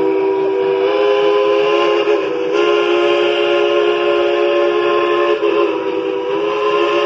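Steam whistle of a 1943 Baldwin S118-class narrow-gauge steam locomotive, No.190, blowing one long sustained blast, several notes sounding together as a chord. The pitch shifts slightly about a second in, again at two and a half seconds and at five seconds, as the blast is held on.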